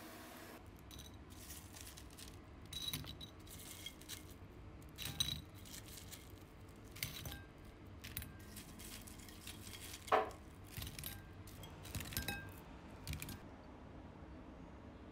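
Crisp fried breaded sausage bites being handled and set down on a ceramic plate: a scattered series of light clicks, taps and clinks, the loudest a short ringing clink about ten seconds in.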